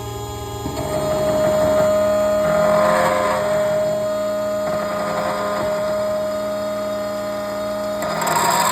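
Computerized key-cutting machine running, its cutter milling a Ford F-150 key blade to the looked-up code. A steady motor whine starts about a second in, and rougher cutting noise swells twice: around three seconds in and again near the end.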